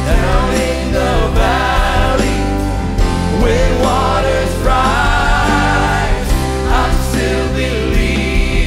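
Live contemporary worship music: a woman and a man sing lead with a choir of young voices behind them, backed by a band of piano, electric guitars, bass and drums.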